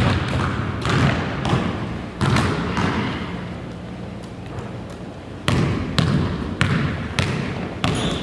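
Basketball being dribbled on a court: a run of bounces, a few early, a pause, then about two a second in the second half.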